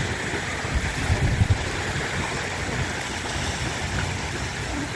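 Small waves washing onto a sandy beach in a steady rush, with wind buffeting the microphone in low rumbles.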